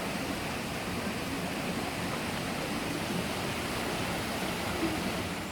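Steady rushing water, an even wash of noise with no distinct animal call.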